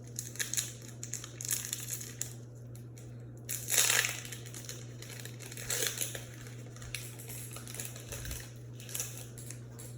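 Pokémon booster pack being handled: the foil wrapper crinkles and the trading cards rustle in irregular short bursts, loudest about four seconds in, over a faint steady low hum.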